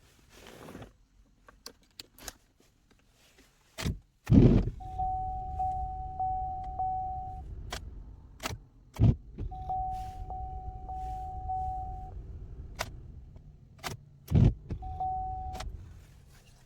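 Keys jangling and clicking at a 2010 Chevy Equinox, then heavy thumps, a low steady rumble and a steady electronic warning tone that sounds three times, the last time briefly.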